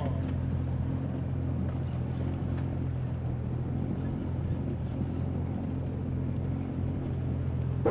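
A boat's outboard motor idling, a steady low hum that stays even throughout.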